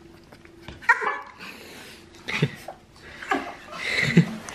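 Small Pomeranian dogs barking excitedly in short, sharp yaps, about four times with pauses between.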